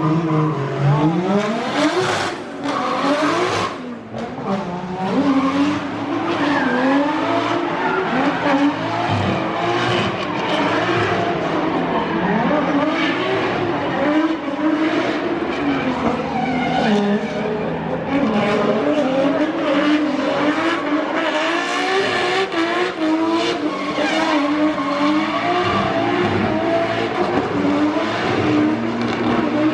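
Drift car engine on track, its revs rising and falling again and again under hard throttle as the car slides, with tyre screech and hiss throughout.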